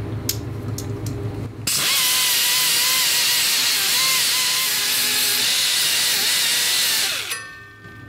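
A hand-held rotary tool with an abrasive wheel grinding heavy rust off the ignition ground contact points of a Tecumseh small engine. It starts about two seconds in as a loud hiss with a whine that wavers in pitch as the wheel bears on the metal, and winds down shortly before the end. A low steady hum is heard before it starts.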